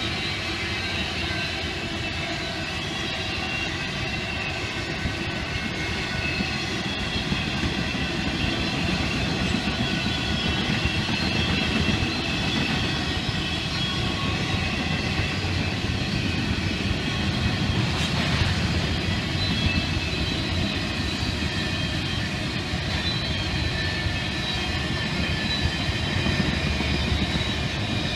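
Double-stack intermodal freight train's well cars rolling past: a steady rumble of wheels on rail with several high, steady whining tones above it, and one faint click about eighteen seconds in.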